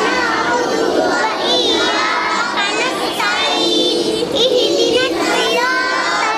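A large group of children singing together in unison, many young voices overlapping with some notes held.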